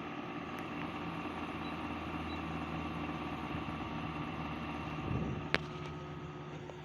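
LG 8,000 BTU portable air conditioner running with a steady hum. About five and a half seconds in there is a sharp click, after which the hum changes pitch and gets a little quieter.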